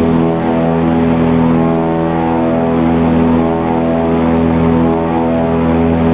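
Airboat engine and its air propeller running at speed, a loud, steady drone holding one pitch.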